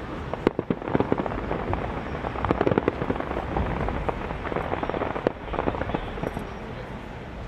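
Aerial fireworks bursting: a dense run of crackling pops and bangs over a low rumble. It is thickest about two and a half to three seconds in, with a single sharp crack about five seconds in.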